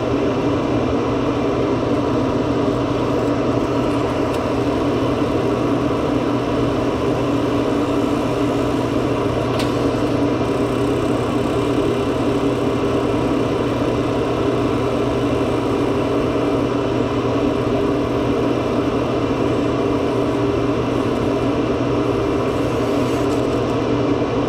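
A steady machine hum with several held tones, running evenly throughout, with one light click about ten seconds in.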